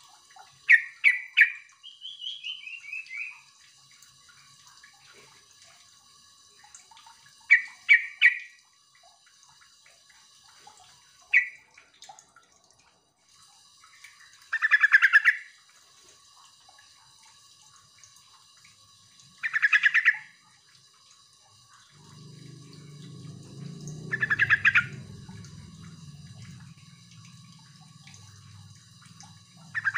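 Yellow-vented bulbul calling in short, quick phrases of several notes, repeated every few seconds. About two seconds in there is a falling run of notes. From about 22 seconds in, a low hum runs underneath.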